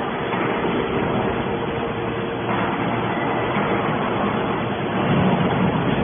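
Hydraulic scrap metal baler running: a steady mechanical drone from its hydraulic power unit, with a faint steady hum, turning louder and rougher about five seconds in.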